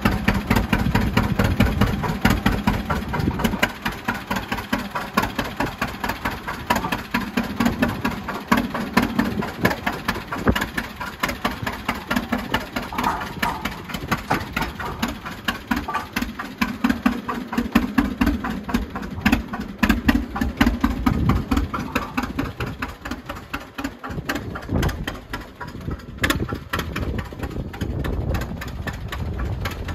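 John Deere G two-cylinder tractor engine running with its quick, even popping exhaust beat as the tractor drives off, the sound growing fainter near the end as it moves away.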